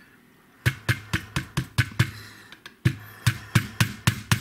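A small hammer tapping a knurled pin into the barrel housing of a Barra 1866 CO2 lever-action rifle, driving it home to lock the swapped barrel in place. Quick light taps, about four a second, each with a short ring, starting under a second in with a brief pause past the midpoint.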